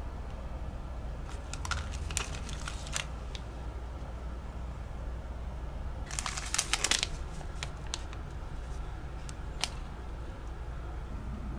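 Foil tea-bag sachets and a plastic-wrapped cookie crinkling and rustling as they are handled, in short spells about a second and a half in and, loudest, around six to seven seconds in, over a steady low hum.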